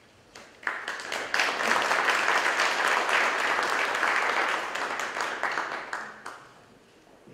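An audience applauding, building up in the first second or so and dying away near the end.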